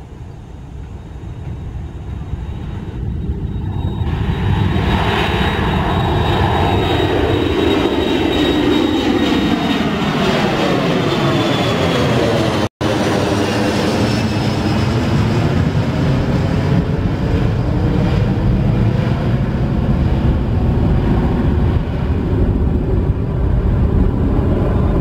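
Twin-engine jet airliner climbing out just after takeoff, its jet engines at takeoff power. The engine noise swells over the first few seconds, sweeps down in pitch as the plane passes overhead, cuts out for an instant near the middle, then keeps running loud as it flies away.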